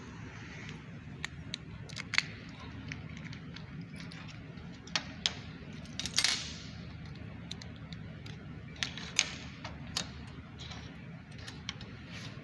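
Scattered plastic clicks, taps and clinks of a Toyota Prius smart key fob and its metal key being handled and pried apart for a battery change, with a louder scrape about six seconds in. A steady low hum runs underneath.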